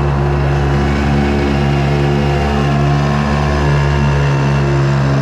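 Small two-stroke Hankai 3.6 hp outboard motor running steadily at constant throttle, heard up close with an even, buzzing engine note.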